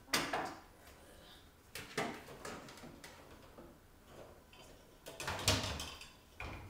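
Kitchen clatter from unloading a dishwasher: dishes knocking and a cupboard door or drawer banging shut, in a few separate knocks, the loudest cluster about five and a half seconds in.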